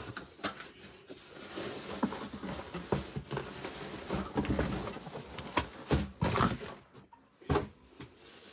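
Plastic wrapping crinkling and cardboard rustling as a wrapped package is lifted out of its box and handled, with several sharper crackles and knocks, the loudest a little past the middle.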